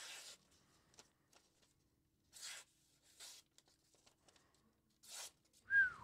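A razor-sharp Nitro-V fixed-blade knife slicing through thin telephone-book paper in about five short strokes, the last the loudest, just before the end.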